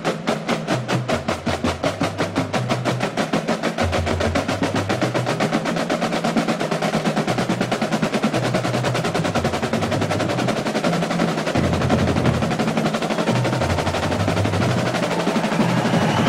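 Massed Basel drums, tall rope-tensioned side drums, played in tight unison in fast strokes and rolls, with a low bass pattern stepping underneath.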